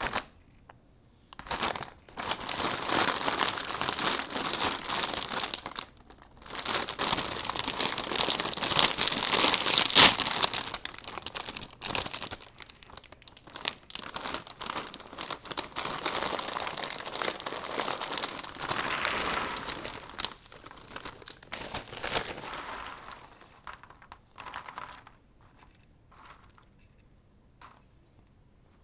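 Crunchy Flips snacks being crushed in a meat grinder: a dense run of crunching and crackling, loudest partway through, thinning to scattered crackles near the end.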